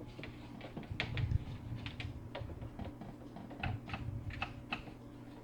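Small electric aquarium gravel vacuum pump running with a steady low hum, under irregular light clicks and taps from the submerged plastic attachment working over the tank.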